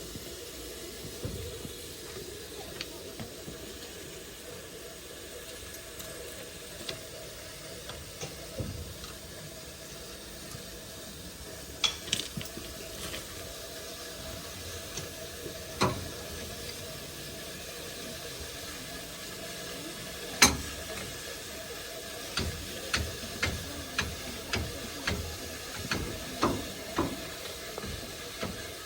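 Steam locomotive simmering with a low, steady hiss. A few sharp knocks are scattered through it, and from about three-quarters of the way in there is a regular run of sharp ticks, about two a second.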